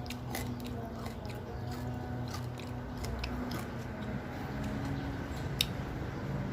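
A person biting and chewing crispy pata (deep-fried pork leg), with scattered crunches and mouth clicks and one sharper crunch about five and a half seconds in.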